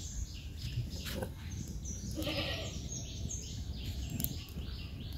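A goat bleating once, a short wavering call about two seconds in, with a few faint clicks around it.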